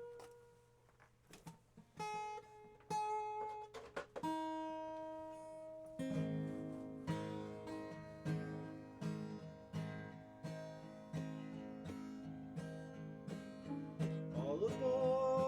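Acoustic guitar playing a song's intro: a few single plucked notes and chords ringing out, then a steady strummed rhythm from about six seconds in.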